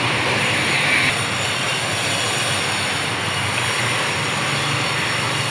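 Steady noise of road traffic, an even rushing din with no breaks.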